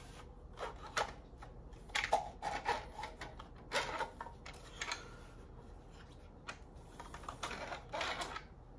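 Irregular plastic clicks and clatter from a 3D-printed foam-dart revolver blaster being worked by hand between shots. Single clicks come a second or so apart, with quicker clusters about two seconds in and near the end.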